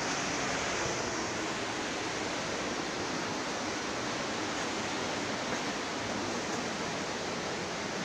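River water rushing past, a steady, even noise.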